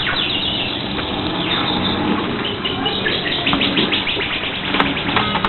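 High chirping in quick runs of downward-sliding notes, with the densest run near the end, like a bird's chirps.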